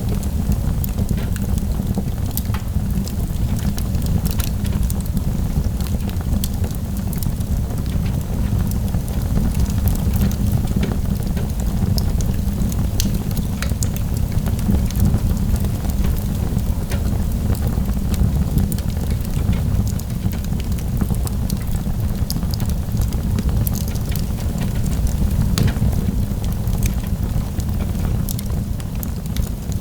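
Wood fire burning in a fireplace, with frequent small crackles and pops over a steady low rumble.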